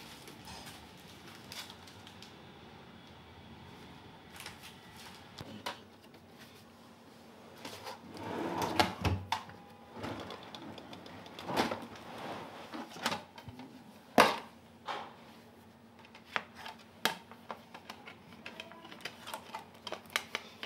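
A wooden drawer sliding open, with plastic CD and cassette cases clicking and knocking as they are rummaged through and handled. Irregular sharp clicks throughout, a longer scrape about eight seconds in, and a few louder knocks after it.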